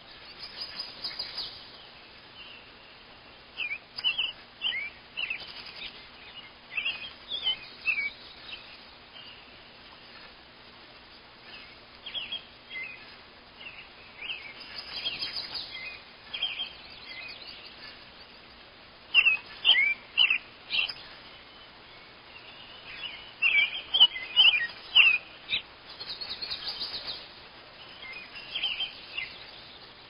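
Small songbird chirping in repeated clusters of short, sharp notes that slide in pitch, with quiet gaps between them; the loudest clusters come about two-thirds of the way through.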